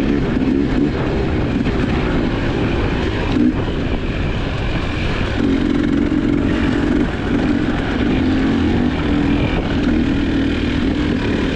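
GasGas EC300's two-stroke enduro engine running as the dirt bike is ridden, its pitch wavering up and down with the throttle and briefly easing off a few times, over a constant low rumble.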